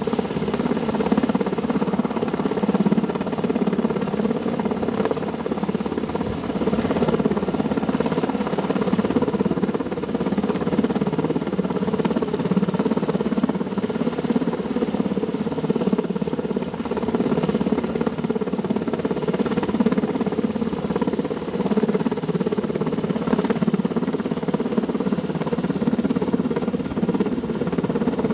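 Helicopter hovering overhead, its rotor and engine making a steady drone while it takes up a sling load.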